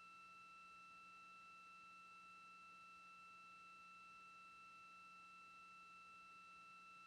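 Near silence on a broadcast audio feed: a faint, steady electronic tone at two high pitches over a faint low hum.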